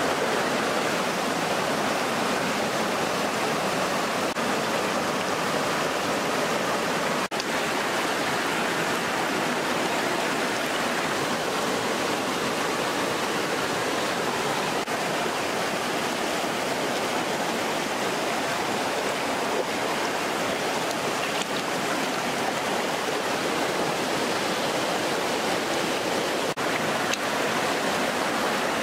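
Shallow stream rushing steadily over rock, a constant even rush of flowing water.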